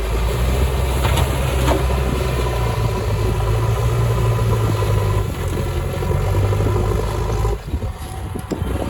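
Heavy diesel engine of earthmoving or farm machinery running steadily, with a couple of sharp knocks in the first two seconds and a brief dip about seven and a half seconds in.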